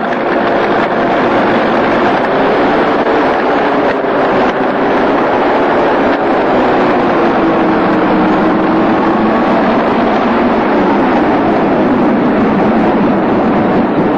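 Tracked all-terrain vehicle's engine running hard as it drives close by over snow, the engine note slowly rising and falling.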